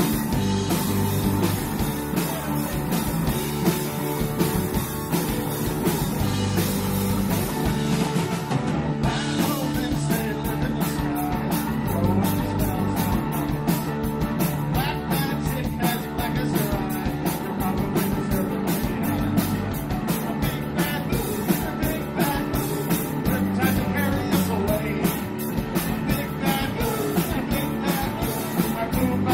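A live rock band playing: drums keeping a steady driving beat under electric guitars, with a man singing into the microphone.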